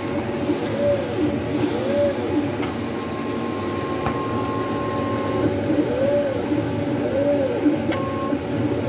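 Rhinotec vinyl cutting plotter kiss-cutting round printed sticker labels: its motors whine, rising and falling in pitch with each curve, about once a second. A steady higher whine runs for a couple of seconds midway, with a few sharp clicks.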